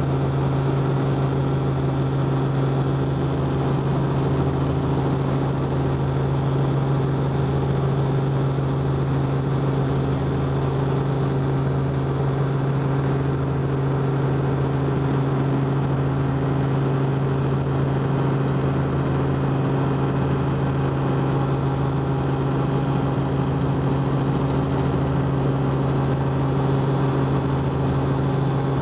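Helicopter in flight, heard from inside the cabin: a steady engine and rotor drone with a slow, even throb underneath.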